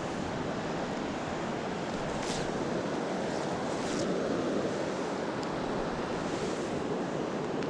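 Steady rushing of a fast-flowing glacier river.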